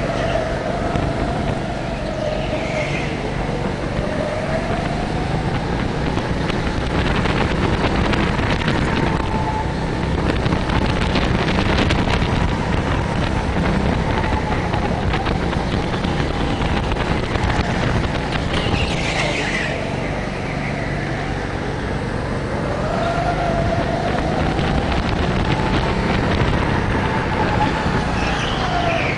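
Go-kart heard from onboard at speed, its motor note rising and falling as it accelerates down the straights and slows for corners. Short squeals come in a few times, near the start, about two-thirds of the way through and near the end.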